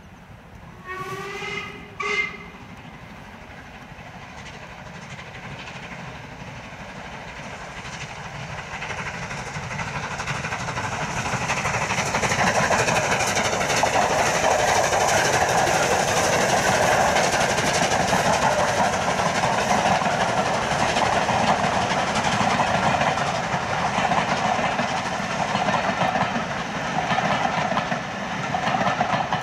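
Steam locomotive whistle sounds twice about a second in, a long blast then a short one. Then a steam train working hard with a rake of coaches draws closer, its exhaust and wheels on the rails growing louder and staying loud as it passes.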